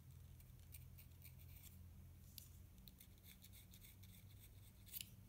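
Reed knife scraping the cane at the corners of an oboe reed's tip: faint, quick scratchy strokes in short runs, the loudest one near the end. The corners are being thinned to take a slight edge out of the reed's sound.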